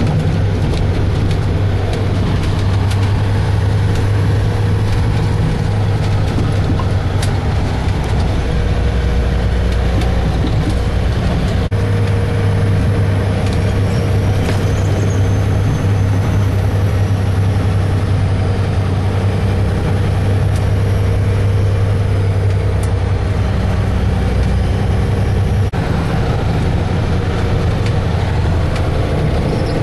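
Kenworth T800 lowbed truck's diesel engine running steadily as the truck drives along a gravel road, heard from inside the cab with road noise.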